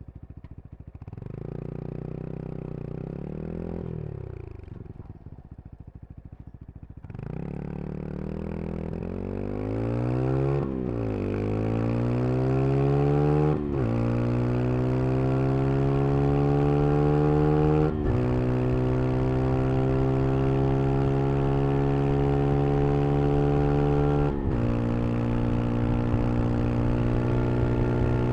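Brixton Crossfire 125 XS's single-cylinder 125 cc engine accelerating through the gears: the engine note climbs, drops sharply at each upshift, four times, and settles into a steady higher-gear run near the end.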